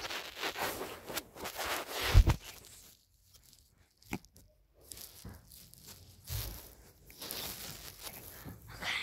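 Handling noise of a phone being moved about and rubbing against clothing and a book, with a heavy bump about two seconds in and a sharp click about four seconds in.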